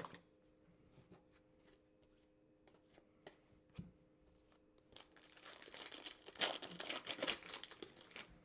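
Light clicks of trading cards being handled, then from about five seconds in a few seconds of crinkling and tearing as a foil trading-card pack wrapper is ripped open.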